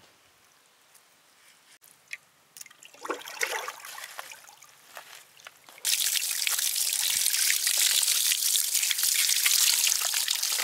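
A few faint handling knocks, then about six seconds in a steady stream of water starts pouring and splashing, and keeps running.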